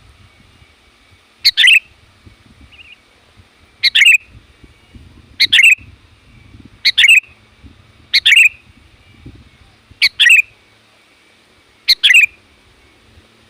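Sooty-headed bulbul (kutilang) calling loudly: a short, quick double-noted call repeated seven times, one every one and a half to two seconds. It is a lure call meant to draw in wild kutilang.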